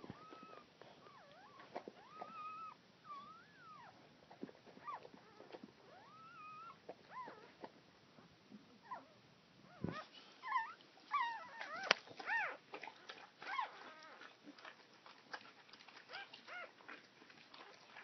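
Newborn puppies giving short, high-pitched squeaking whimpers, busiest about ten to fourteen seconds in, with soft clicks in between.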